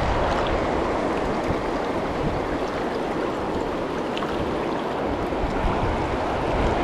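Steady rushing of a fast mountain river's current, an even wash of flowing water.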